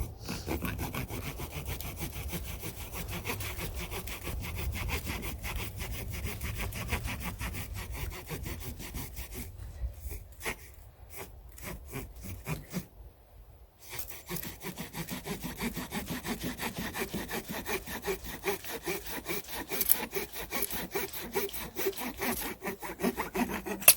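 A bread knife sawing back and forth through polyethylene well pipe: a steady run of repeated strokes, broken by short pauses partway through, until the pipe is cut.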